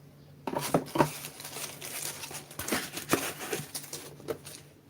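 Packaging and a boxed network switch being handled: irregular crinkling and rustling with a few light knocks, over a faint steady low hum.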